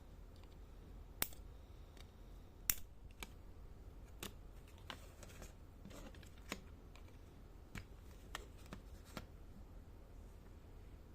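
Sharp small clicks and taps of plastic, about ten at irregular intervals, the two loudest a little over a second and nearly three seconds in, as a wireless computer mouse is handled and worked on. A steady low hum sits underneath.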